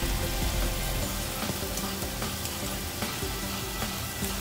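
Mutton pieces sizzling and crackling as they fry in a stainless steel pot.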